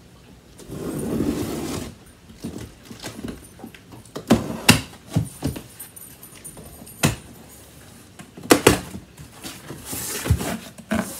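A large cardboard shipping box being opened at one end by hand: a rustling scrape about a second in, then a string of sharp cardboard knocks and snaps as the end flaps are worked loose and pulled open.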